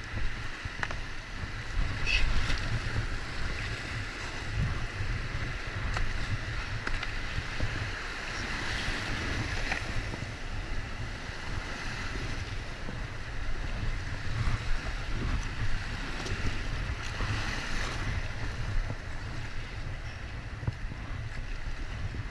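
Rushing whitewater of a river in flood, heard from an inflatable kayak running the rapids, with wind rumbling on the microphone and a few brief knocks.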